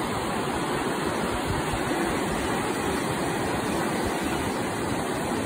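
Ocean surf breaking and washing over the beach in a constant rushing noise, with a low irregular rumble underneath.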